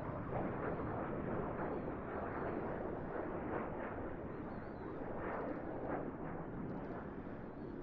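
Dassault Rafale C's twin Snecma M88 turbofan engines heard from a distance during a low display pass: a steady, rough rushing roar that eases slightly near the end.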